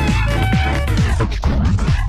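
Electronic dance music: a fast beat of drum hits that fall in pitch, over a steady low bass, with short held synth notes on top.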